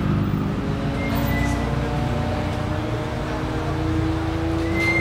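Nissan Skyline R34 GT-R's RB26DETT twin-turbo straight-six idling steadily through a Tomei Expreme Ti titanium catback exhaust.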